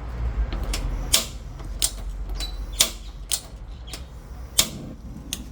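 New gas stove top's igniter clicking as the burners are lit: about six sharp single clicks at uneven intervals.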